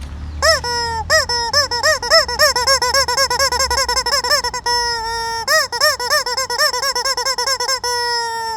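Rubber squeaky toy chicken squeezed over and over: quick squeaks, about three to four a second, each rising and falling in pitch, with two longer held squeals, one near the middle and one at the end.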